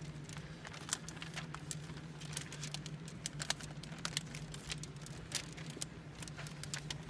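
Wet window tint film crinkling and crackling as it is handled and rolled against the inside of a windshield, many small irregular clicks, over a steady low hum.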